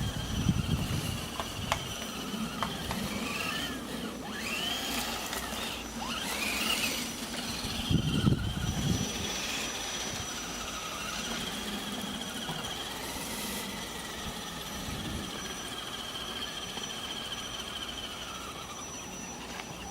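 Electric motor and gears of an RC 4x4 crawler whining, the pitch rising and falling with the throttle. Low rumbling knocks near the start and about eight seconds in.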